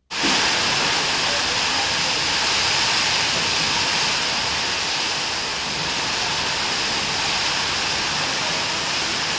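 Heavy rain pouring down in strong gusty wind, a steady dense hiss.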